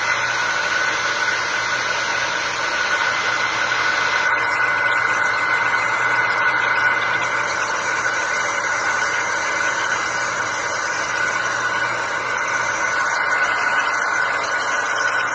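Hair dryer running steadily, blowing on freshly painted action-figure armour to dry it: a constant rushing hiss with a steady high whine and a low hum beneath.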